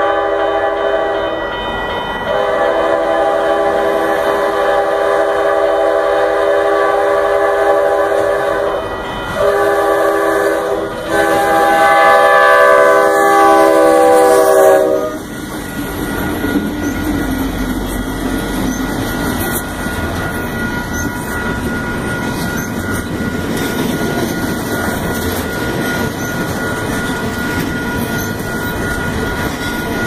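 A CSX freight locomotive's multi-chime air horn blows four blasts, long, long, short, long, which is the grade-crossing signal. It grows louder as the engine nears and cuts off as it passes about fifteen seconds in. Then comes the steady rumble and clickety-clack of double-stack container cars rolling by.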